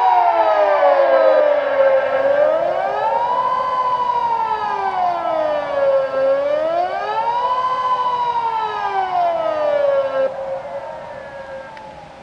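Two Kockum Sonics Delta 6 electronic civil-defence sirens sound together, one pitched slightly higher than the other. They wail, rising and falling about every four seconds. About ten seconds in, the wail falls away and fades out.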